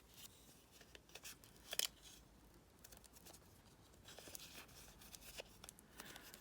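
Faint rustling and small clicks of paper being handled and pressed into place, with one sharper click about two seconds in.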